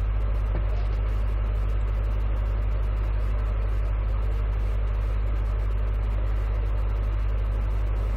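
A steady, loud low hum that does not change, over a faint even hiss.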